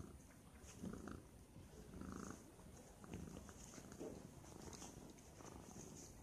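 Tabby cat purring while being stroked, a faint low rumble that swells and eases about once a second with its breathing.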